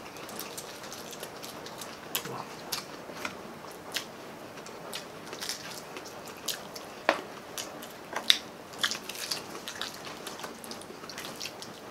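Close-miked chewing and biting of crispy pata (deep-fried pork knuckle) and fried chicken, with scattered sharp crunches and crackles of crisp skin, the loudest about eight seconds in.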